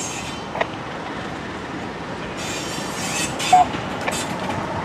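Freight cars rolling slowly on jointed rail, a steady rumble with a few sharp knocks from the wheels and a brief wheel squeal about three and a half seconds in.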